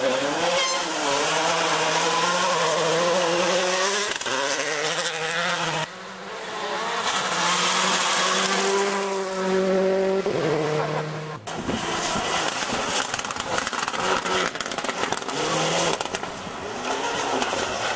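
Rally car engines revving hard, their pitch rising and falling as the cars drive through gravel corners. Several cars are heard in turn, with abrupt breaks about six and about eleven seconds in.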